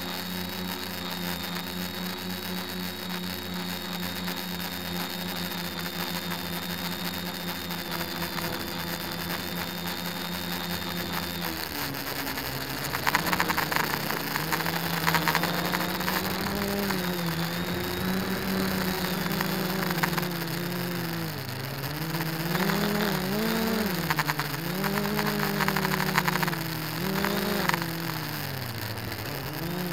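DJI quadcopter's electric motors and propellers whining, heard from the camera on board. The pitch holds steady for about the first twelve seconds, then drops and rises and falls again and again as the throttle changes, with short bursts of rushing noise.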